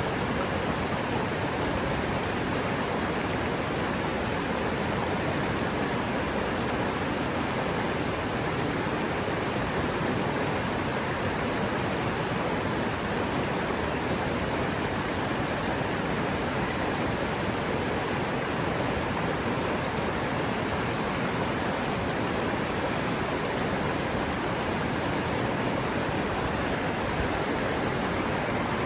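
River water running steadily: a dense, even rush with no change in level.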